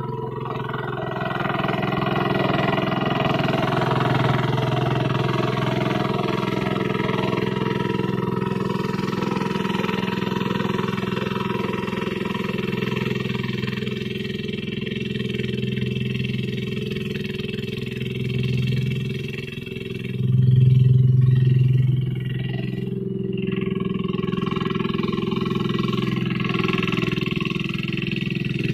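Single-cylinder diesel engine of a Kubota two-wheel hand tractor running steadily under load while working a wet paddy field, briefly louder about two-thirds of the way through.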